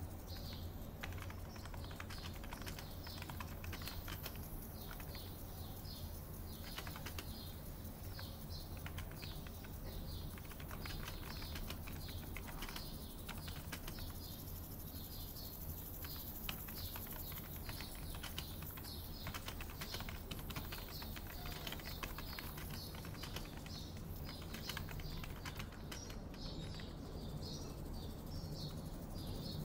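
Typing on a computer keyboard in irregular runs of quick key clicks with short pauses, over birds chirping again and again and a steady low hum.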